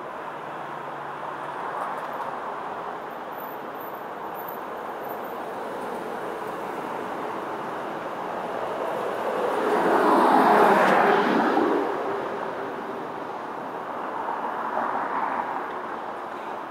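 A vehicle passing close by, swelling up and fading away about ten seconds in, over a steady outdoor background hum. A fainter, shorter swell of the same kind comes near the end.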